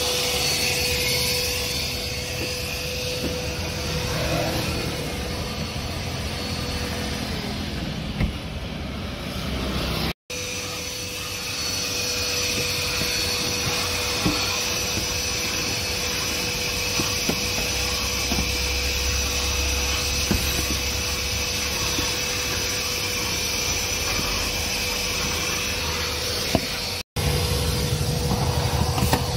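Canister wet-and-dry vacuum cleaner running steadily with a motor whine while its nozzle works over a car's interior, with a few light knocks of the nozzle against the trim. The sound drops out for an instant twice.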